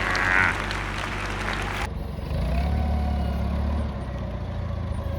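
Forklift engine running steadily, a little louder for a second or so in the middle, with a faint whine rising and falling above it.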